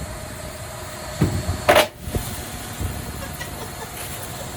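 Washing machine running with a steady rumble, and about a second and a half in a hard object thrown into it bangs and crashes against it, the crash being the loudest sound.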